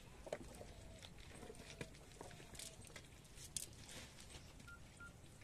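Faint, scattered wet clicks and small slaps as small fish are picked out of a nylon cast net lying on wet mud, with two short high peeps near the end.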